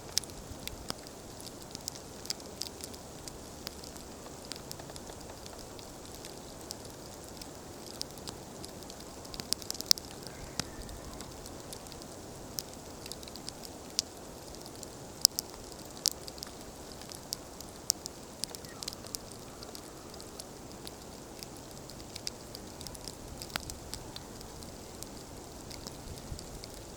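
Wood campfire crackling, with irregular sharp pops over a steady hiss; a few louder pops stand out about ten and fifteen seconds in.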